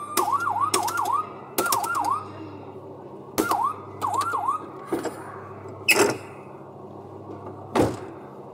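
Electronic siren sound effect from a Falgas fire-truck kiddie ride's speaker, played in several short bursts of quick dipping-and-rising yelps as its dashboard buttons are pressed, with sharp clicks as the bursts start. Two louder sharp knocks come in the second half.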